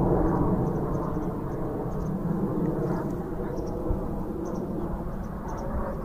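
Jet aircraft engine rumble, slowly fading.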